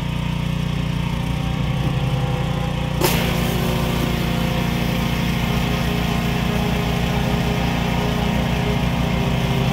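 Petrol pressure washer engine running steadily. About three seconds in there is a sharp click, and the hiss of high-pressure water spraying from a rotary surface cleaner onto wooden decking joins the engine.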